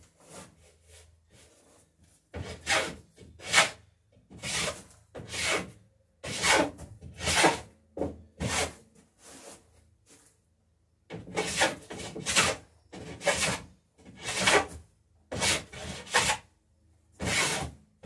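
Hand plane shaving the edge of a wooden plank to bevel it: a run of long rasping strokes about one a second, with a short pause about halfway through.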